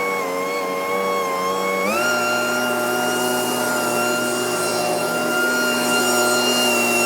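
Scag Windstorm stand-on leaf blower running, a steady engine-and-fan whine that rises to a higher pitch about two seconds in as it speeds up, then holds.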